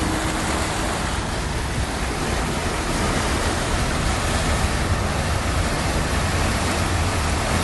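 A car driving through deep floodwater on a street: a steady rush of water churned up around the car over a low vehicle rumble.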